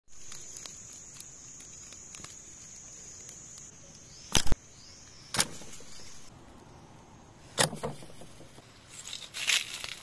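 A steady high-pitched insect drone for the first few seconds, over small clicks and a few sharp knocks from bamboo trap pieces being handled. The loudest knock comes about four and a half seconds in, and a short rustle follows near the end.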